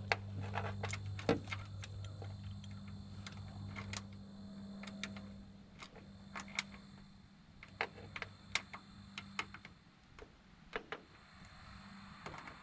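Irregular small metallic clicks and taps as a new liftgate gas strut and its fittings are handled and fitted by hand at the top hinge, under a steady low hum that fades out about halfway through.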